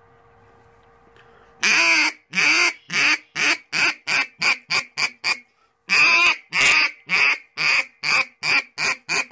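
Hobo duck call blown in a comeback call: two runs of loud quacks, each starting with long drawn-out notes and speeding up into shorter, quicker ones, with a short break about halfway through.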